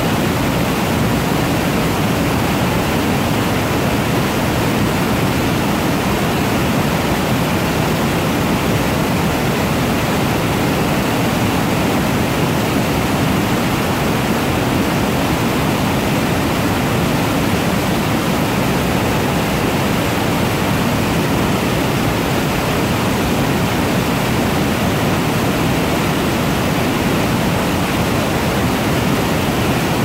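Mountain torrent in flood, white water rushing and cascading over and between boulders: a loud, steady roar of water.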